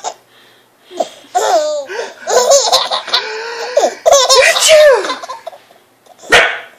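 An 18-month-old toddler laughing in several giggling, belly-laugh bouts, each falling in pitch. Near the end there is one short, sharp sneeze from a man.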